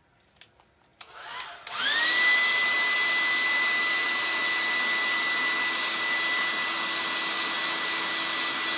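Hair dryer switched on about a second in, spinning up with a rising whine and then running steadily, a rush of air with a high whine on top, drying wet paint on the canvas.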